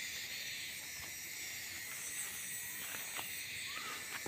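Steady high-pitched hiss of insects in the surrounding trees and undergrowth, with a few faint clicks and a short faint bird chirp near the end.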